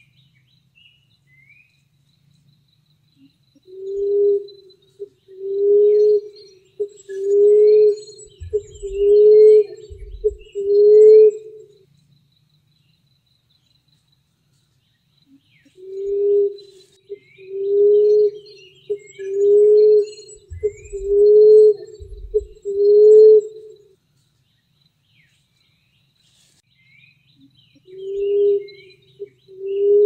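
Emerald dove cooing: a low coo about once a second, in runs of about six with pauses of a few seconds between them. Small birds chirp faintly behind it.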